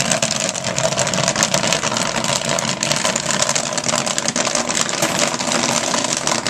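Commercial kettle popcorn machine running with a steady motor hum, under a dense patter of light ticks and rattles as popped corn spills out of the tipped kettle into the steel bin.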